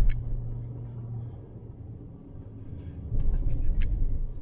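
Car driving on a snow-covered street, heard from inside the cabin: a low rumble of tyres and engine. It grows louder and rougher about three seconds in, with a couple of faint clicks.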